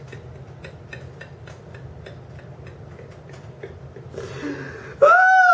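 Faint, even ticking at about four ticks a second over a low steady hum. Near the end a loud electronic tone rises and falls in two pitches at once.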